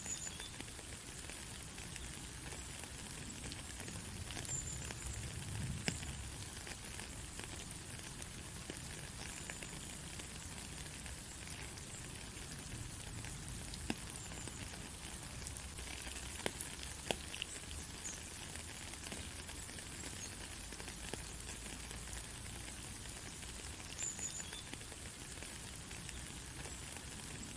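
Steady rain falling on a country road: an even hiss with scattered ticks of individual drops.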